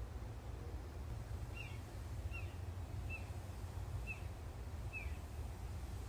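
Red-bellied woodpecker calling: five short, slightly falling notes, a little under a second apart, over a steady low rumble.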